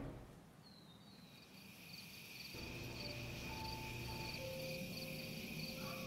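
Crickets chirping in an evening ambience, a faint high chirp repeating about twice a second over a steady high hum of insects. Soft sustained music notes come in about halfway through.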